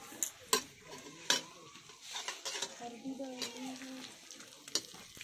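Steel ladle scraping and clinking in a steel kadhai as chilli paste is stirred in hot oil, with a few sharp clinks of metal on metal and a sizzle of frying that grows louder after about two seconds.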